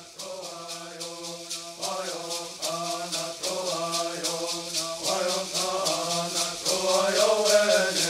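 Traditional bird singing: voices chanting a bird song over a steady beat of shaken gourd rattles. It grows louder about two seconds in.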